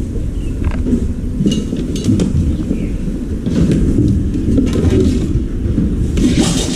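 Hand-handling clatter: a cable and small workshop objects moved about on a concrete floor, giving a few light clinks and knocks over a steady low rumble.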